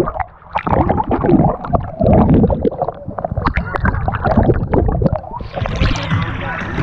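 Muffled underwater gurgling and bubbling of churning pool water, with a dense crackle of bubble pops over a low rumble. About five seconds in, the sound abruptly brightens as the microphone comes up toward the surface.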